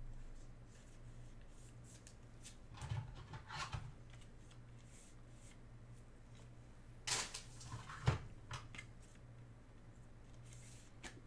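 Faint handling sounds of a trading card being slid into a rigid plastic toploader: short rustles and clicks about three seconds in and again around seven to eight seconds, the sharpest click near eight seconds, over a steady low hum.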